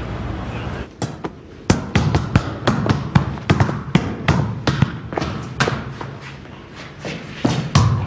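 A football being kicked and bounced on a tiled corridor floor: a quick, irregular run of sharp thuds, about two or three a second, starting about a second in after steady background noise.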